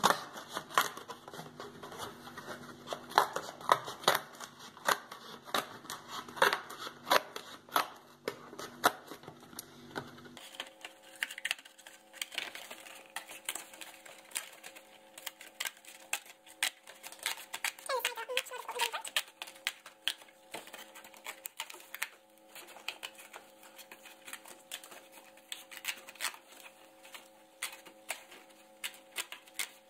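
Scissors snipping through a thin cardboard cereal box: a long run of sharp, repeated snips, about two a second.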